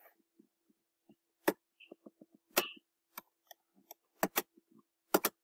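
Computer mouse and keyboard clicks, a dozen or so sharp irregular clicks, some in quick pairs, over a faint steady hum.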